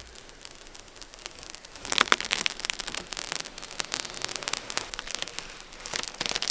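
Protective plastic film being peeled off a new van side window: irregular crackling and snapping that grows louder and denser about two seconds in.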